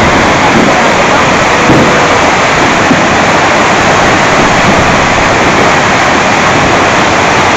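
Stream in flood, swollen by hurricane rain, rushing and churning over a small dam spillway: a loud, steady rush of water.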